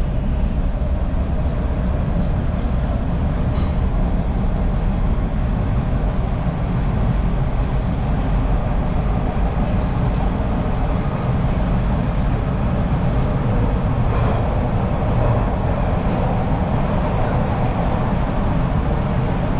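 TTC Line 2 subway train running between stations, heard from inside the car: a loud, steady low rumble with light clicks now and then.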